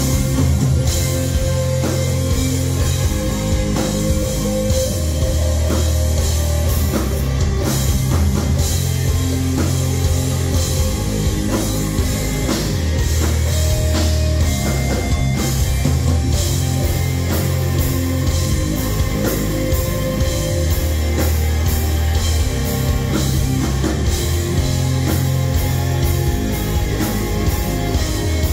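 A dark metal band playing live: distorted electric guitars, bass and a drum kit, with heavy low chords held for a second or two each over steady drumming.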